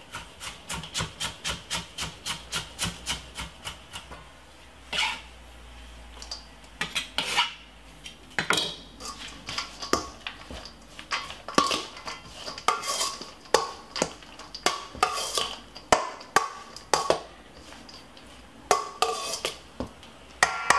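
A knife chopping onion on a wooden cutting board, even strokes about three a second, for the first few seconds. Then a metal slotted spoon tosses spaghetti salad in a stainless steel mixing bowl, with irregular clinks and scrapes of metal on metal.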